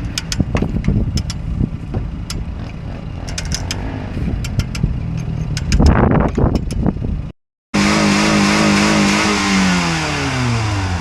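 Metal clanks and clicks of chain and winch work, a burst of louder knocking about six seconds in, then after a cut a vehicle engine running, its pitch falling steadily as it slows.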